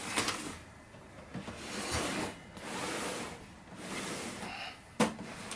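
An Olivetti M24 computer and its keyboard being slid and turned on a workbench: a few swells of scraping and rubbing, with one sharp knock about five seconds in.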